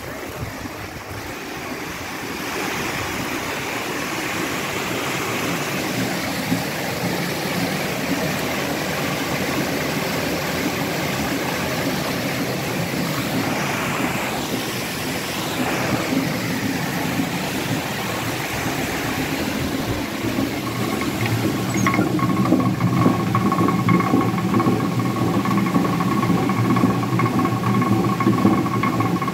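Water rushing along a mill channel. About 22 seconds in it gives way to the steady rumbling hum of a water-driven millstone turning in a small creek watermill, with a few steady pitched tones above the rumble.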